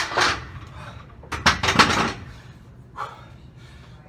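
Heavy 100 lb hex dumbbells set down at the end of a set, clanking: a sharp clatter at the start and another cluster of knocks about a second and a half in.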